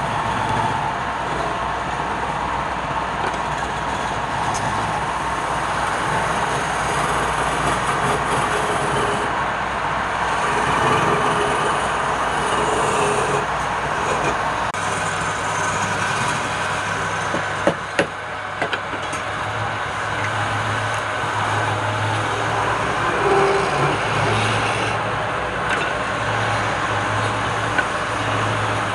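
Wood lathe running with a turning tool cutting the spinning wood: a steady rushing, scraping noise over a low motor hum, broken by a few sharp knocks a little past halfway.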